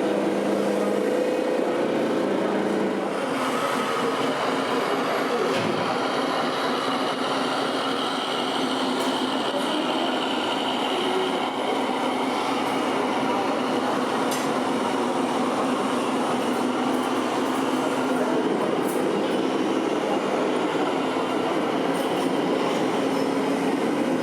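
Radio-controlled scale model trucks running: the steady whirring rumble of their electric motors and gearboxes, with a faint high whine in the middle and a few light clicks.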